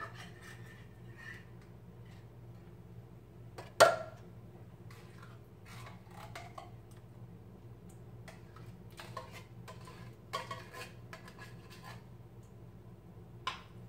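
A utensil scraping and clinking against a metal can and the crock pot as strawberry pie filling is spooned out into the pot, with one loud clank about four seconds in.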